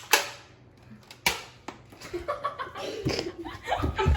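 Two sharp clicks about a second apart, then voices from about two seconds in.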